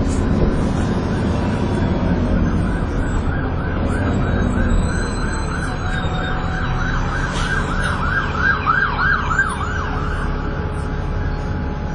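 An emergency-vehicle siren on a fast yelp, several rises and falls a second, grows louder to a peak near the end and then stops. Under it the bus's engine runs with a steady low rumble.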